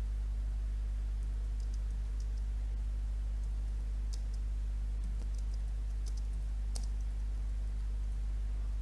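Typing on a computer keyboard, with faint, irregular key clicks, over a steady low electrical hum.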